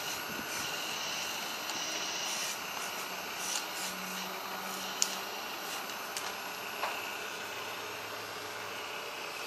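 Hydraulic pump and valves of a 1:12-scale radio-controlled excavator running steadily, a hiss with a high whine in it, as the arm digs soil and lifts a loaded bucket. A few sharp clicks come about five to seven seconds in.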